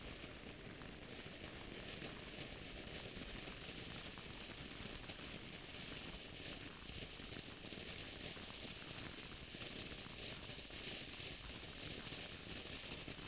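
Crystal Geyser fountain firework burning with a steady, faint hiss and light crackling as it sprays sparks and stars.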